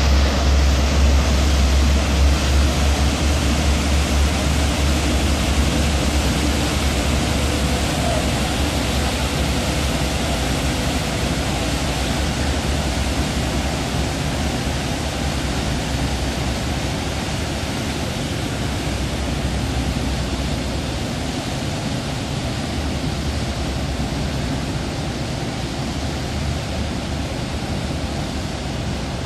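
Austal 47.5 m catamaran fast ferry pulling away: a steady low engine rumble under the rush of its churning waterjet wash, both slowly fading as it moves off.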